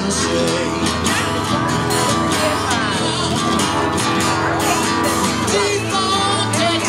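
Live guitar music from a duo playing an acoustic guitar and a second guitar, continuous throughout.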